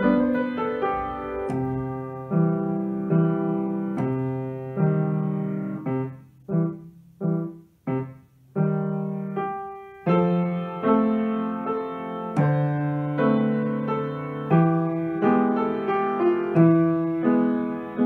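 Grand piano played solo, with chords and a melody. About six seconds in, the playing turns to a few short, separated chords with brief silences between them, then fuller, sustained playing resumes.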